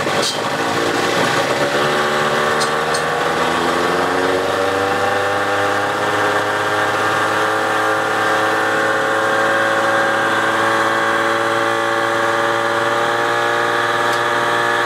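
1990 Johnson 15 hp two-stroke outboard running just after a hand-choked start, its engine speed climbing gradually over the first several seconds and then holding steady. It is running on an all-metal carburetor fitted in place of a plastic-topped carburetor that would not idle.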